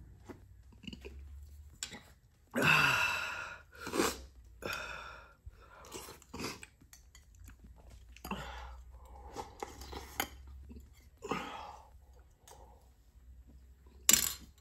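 A person drinking soup straight from a tilted bowl: a series of separate slurps, gulps and chewing sounds, the loudest about two and a half seconds in. A sharp clink of a dish near the end.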